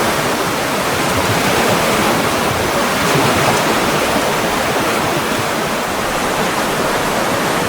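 Steady, continuous rushing of flowing water, an even hiss-like wash with no separate splashes or other events.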